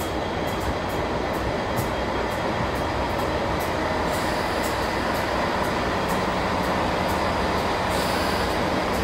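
Class 166 Networker Turbo diesel multiple unit drawing into a platform and slowing, its underfloor diesel engines and wheels giving a steady running noise with a quick, regular high ticking. A low, steady engine hum comes up about halfway through as the front of the train draws level.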